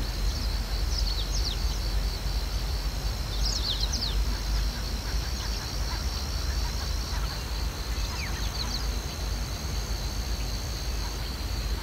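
Bushveld ambience: insects trilling steadily and high, with short falling bird chirps now and then, clustered about three and a half seconds in, over a steady low rumble.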